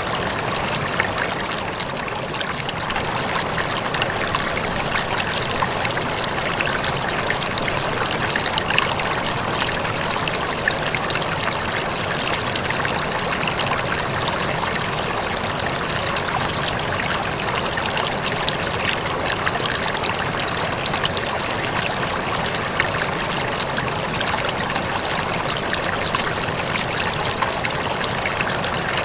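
Steady trickle and splash of circulating aquarium water running into a planted fish tank.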